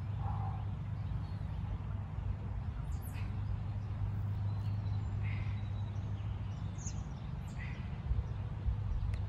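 Outdoor ambience: a steady low rumble with a few short bird chirps, about three, five and seven and a half seconds in.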